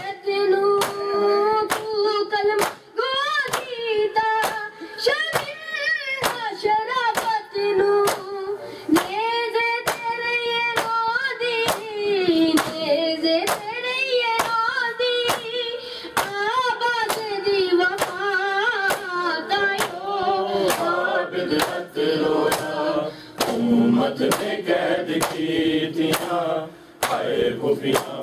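Matam: many mourners striking their bare chests with open palms in unison, a steady rhythm of sharp slaps, under a man's noha lament sung into a microphone. In the last few seconds the singing gives way to more voices chanting together.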